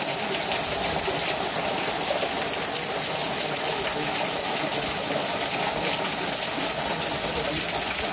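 Torrential rain pouring down onto flooded ground, a dense, steady hiss.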